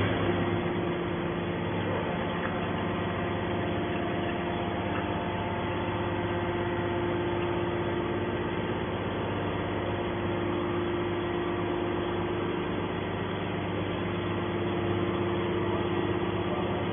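Hydraulic scrap-metal baler running, a steady machine drone with a constant tone from its motor and hydraulic pump.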